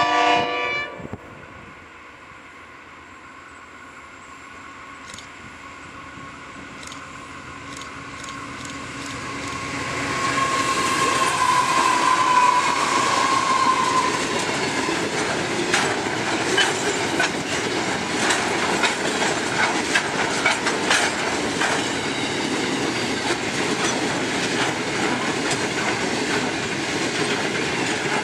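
Freight train hauled by two NR class diesel-electric locomotives: a short horn blast ending about a second in. The train's rumble then builds as the locomotives approach and pass. A long string of loaded container wagons follows, rolling by with a steady clickety-clack of wheels over the rail joints.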